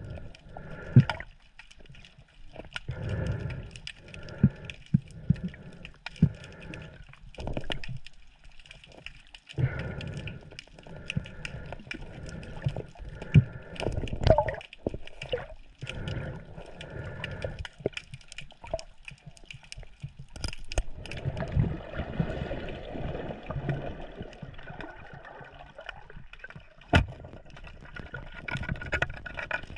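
Water sloshing and splashing in irregular surges, with many sharp knocks and clicks scattered throughout.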